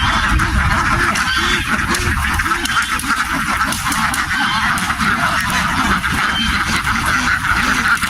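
A large flock of ducks quacking all at once: a dense, continuous chorus of overlapping calls.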